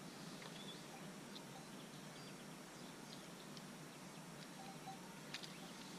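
Quiet outdoor ambience with faint, brief bird chirps, and a few light clicks near the end as spinning-reel spools and parts are handled.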